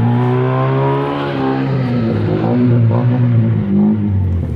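Tofaş car engine running through a loud aftermarket exhaust, its revs rising and falling a little.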